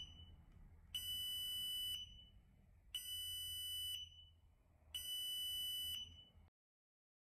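Ludlum Model 52-1-1 radiation portal monitor's electronics unit beeping while it initializes and updates its background count. There are three long, high beeps of about a second each, one every two seconds.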